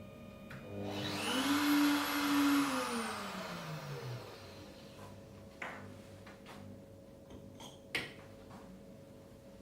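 VYUGA-3M laboratory mill's motor spinning up with a rising whine, running for about two seconds while grinding sunflower seeds, then winding down with a falling whine. A few sharp clicks follow.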